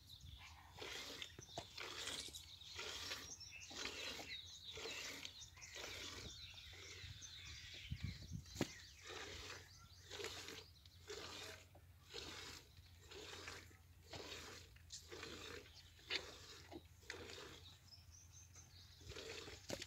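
Calf suckling at a cow's udder: rhythmic wet sucking and slurping at the teat, about one and a half strokes a second.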